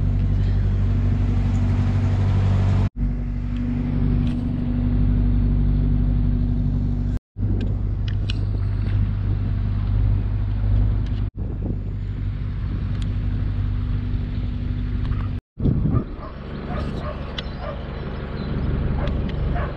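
Narrowboat's diesel engine running steadily while the boat cruises, a low, even hum. It drops out briefly four times, and after the last dropout it is quieter.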